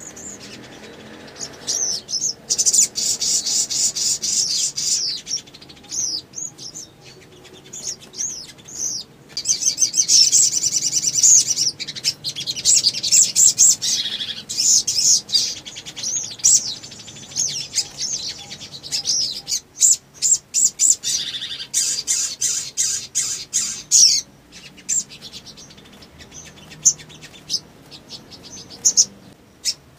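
Caged sunbird singing: rapid, high-pitched chirping trills in several long runs, broken by short pauses and scattered single chirps.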